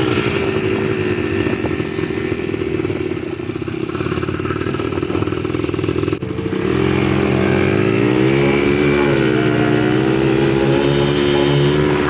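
ATV engine running as it is ridden, its pitch rising and falling with the throttle. It drops off briefly about six seconds in, then picks up again with some rising and falling revs.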